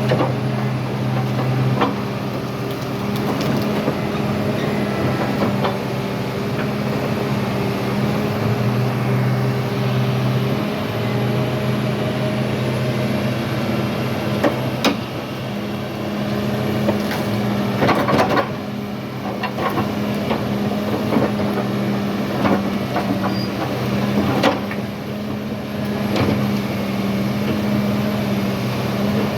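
Diesel engine of heavy equipment running steadily throughout, with a few sharp knocks and cracks in the second half.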